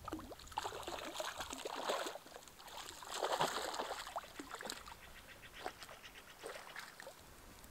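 A hooked trout splashing and thrashing at the lake surface as it is played in on a fly rod. The splashing comes in irregular bursts: two heavy spells in the first half, then smaller splashes.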